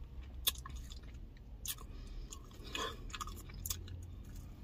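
Close-up chewing of a sauced chicken wing, with a few sharp wet mouth clicks spread through it.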